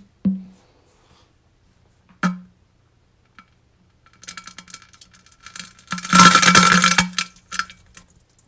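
Toilet-humour sound effect: two short plops, about two seconds apart, then a hissing stream that swells and lasts about four seconds, loudest a little past the middle.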